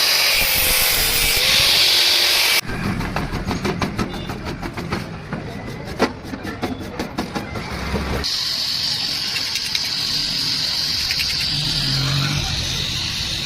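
A steady hiss, cut suddenly about two and a half seconds in to a run of irregular sharp clicks and taps over a low rumble, which cuts back to a steady hiss about eight seconds in.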